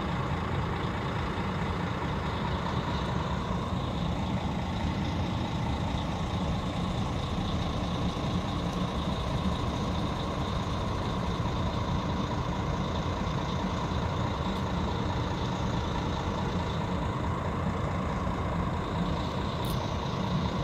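Heavy vehicle engine idling steadily: a constant low rumble with thin, steady high tones above it.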